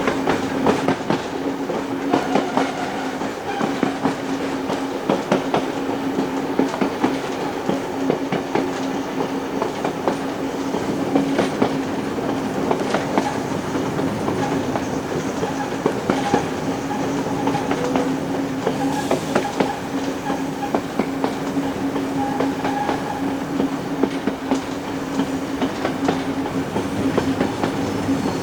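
Passenger train hauled by steam locomotive 3801 rolling along the track: a steady hum with many irregular clicks and clacks of the wheels over the rails.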